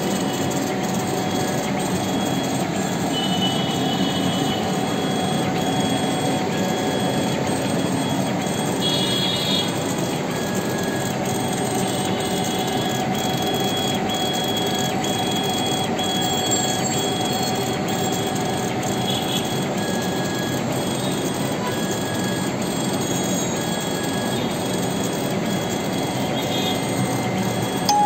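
Laser engraver running: a steady mechanical whir with a faint high whine that comes and goes as the head scans.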